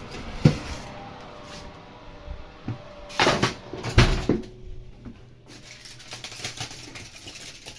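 An oven being opened and the roasting dish taken out: a few knocks and clatters, the sharpest about four seconds in, then a softer rustling.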